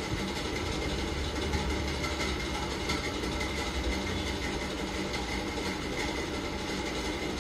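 Steady background hum and low rumble with a faint thin whine, with no distinct events.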